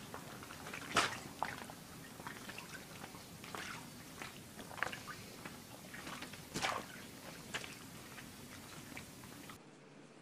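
Irregular soft crackles and sharp clicks as a cat walks across a waterbed, a louder click every second or two.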